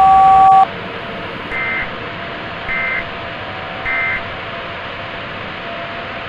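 A short, loud two-tone beep, then three brief bursts of EAS (SAME) end-of-message data tones about a second apart, signalling the end of the alert, over a steady static hiss.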